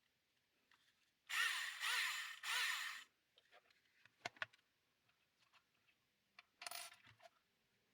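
Small electric hand drill motor run in three short bursts, each whining up in pitch and winding back down. It is followed by a few sharp clicks and one more short noisy burst.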